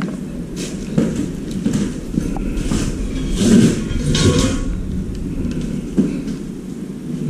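Handling noise: small objects and cables clicking and rustling as they are picked up and moved by hand, loudest around the middle. A steady low rumble runs underneath.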